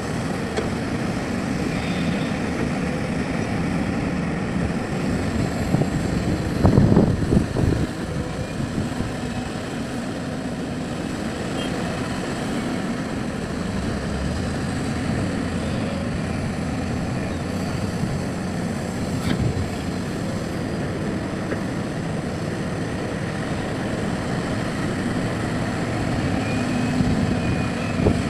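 Excavator's diesel engine running steadily under work, with a louder burst of rumbling and knocking for about a second and a half, around seven seconds in.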